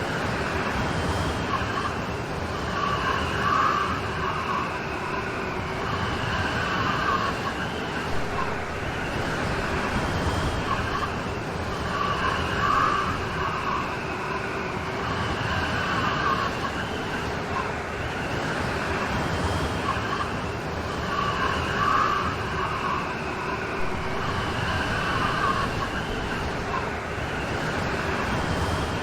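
Steady rainstorm: rain falling in a continuous hiss, with a wavering higher tone that swells and fades every few seconds through it.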